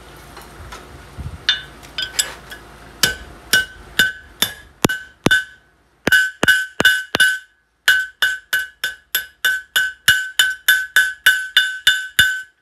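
Hand hammer striking a red-hot steel bar on an anvil while forging a nail, each blow with a bright ring from the anvil. The blows come steadily at about two a second, pause briefly twice, then quicken to about three a second.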